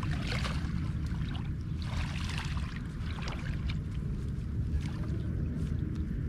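Water splashing and sloshing in several short bursts, over a steady low rumble.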